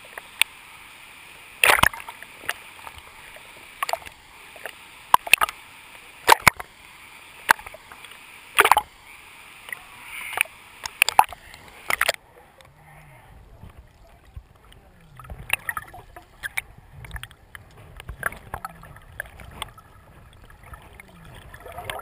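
Water sloshing and slapping against a camera held at the surface of a river, with sharp irregular splashes. About twelve seconds in the camera goes under, and the sound turns suddenly muffled and low, with bubbling.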